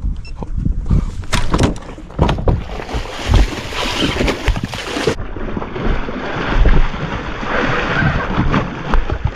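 Water splashing and wind buffeting the microphone, with repeated knocks and clatter, from a hooked bass being fought at the boat.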